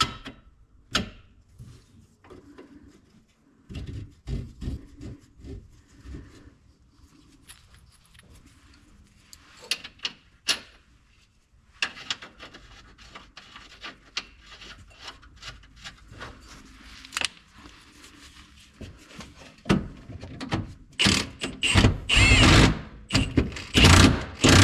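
Metal tools and shock hardware clinking and rubbing, then an impact wrench run in several short bursts near the end, tightening the shock mounting nuts.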